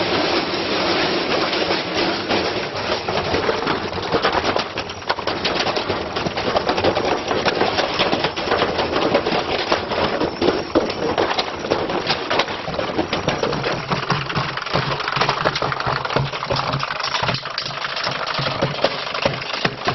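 A washing machine running hard with continuous clattering and knocking from something heavy loaded into its drum. A steady low motor hum joins in about two-thirds of the way through.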